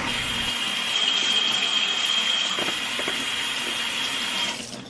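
Kitchen tap running steadily while a bell pepper is rinsed, the hiss of the water carrying a thin steady high tone; the tap shuts off near the end.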